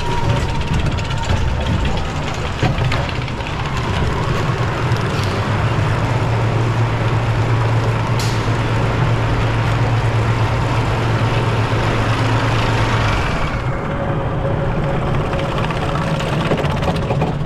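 Wild mouse roller coaster heard from aboard the car as it sets off: a loud, steady mechanical running noise. A low drone sets in about five seconds in and stops about fourteen seconds in, when the higher noise also eases.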